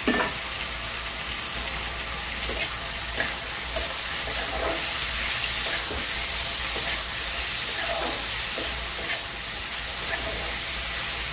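Chopped tomatoes, onions and garlic sizzling in hot oil in an aluminium kadai. A steel spatula scrapes and clicks against the pan as they are stirred. There is a louder burst of sizzle right at the start as the tomatoes drop in.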